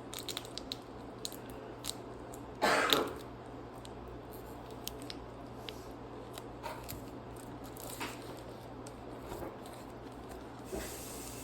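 Quiet handling noises of working on a gingerbread house: scattered small clicks and taps, with one louder rustling burst about three seconds in.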